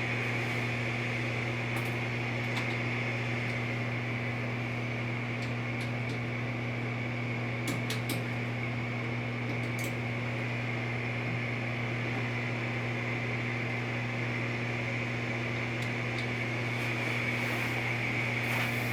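Tempstar gas furnace's draft inducer motor running, a steady hum with a high whine above it, while the burners fail to light. A few faint ticks come about halfway through.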